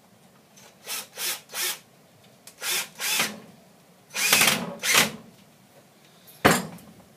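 Power drill run in a series of short bursts, about eight, fastening a piece of rubber onto a trowel.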